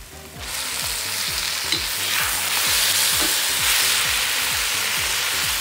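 Tomatoes going into hot oil with frying onions, sizzling hard: the hiss rises suddenly about half a second in and then holds steady.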